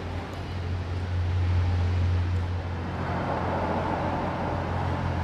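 Steady low mechanical drone under an even rumbling noise, like engine or traffic noise; a higher hum joins about three seconds in.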